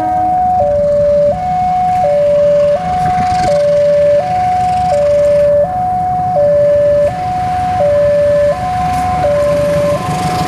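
Level-crossing warning alarm sounding two alternating electronic tones, a higher and a lower note switching about every 0.7 s. Under it runs the low rumble of an approaching diesel locomotive and train, growing near the end.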